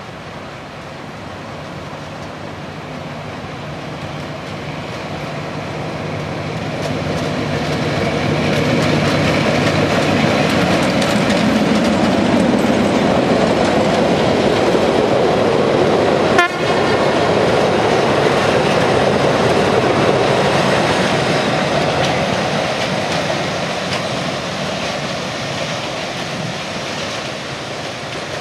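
Narrow-gauge diesel locomotive SLB 73 hauling a passenger train past at close range. The engine's steady running is heard as it approaches, then the wheels and coaches rumble by, growing loud in the middle and slowly fading as the train moves away. A single sharp click comes about halfway through.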